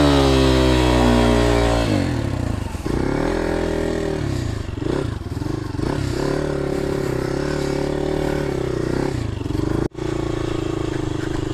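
Motorcycle engine pulling uphill, its revs rising and falling again and again with the throttle. The sound drops out abruptly for a moment about ten seconds in.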